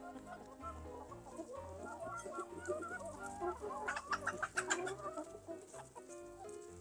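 A flock of backyard hens and a rooster clucking and calling excitedly while feeding on scattered dry banitsa dough. Around four seconds in there is a quick run of sharp clicks from pecking at the dough.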